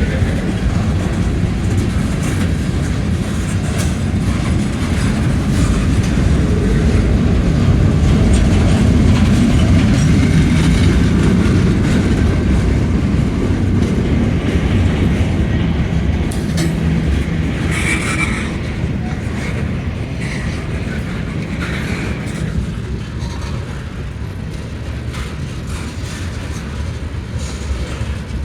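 Train cars rolling past: a steady rumble of wheels on rail with clickety-clack over the rail joints. It builds a little toward the middle, then eases off, with a couple of brief higher squeaks about two-thirds of the way through.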